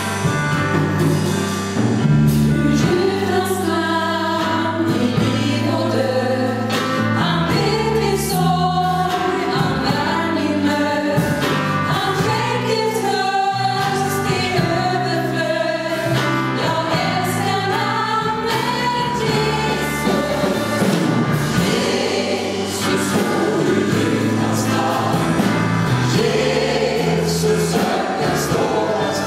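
Mixed gospel choir of men and women singing live, accompanied by keyboard with sustained low bass notes that change every second or so.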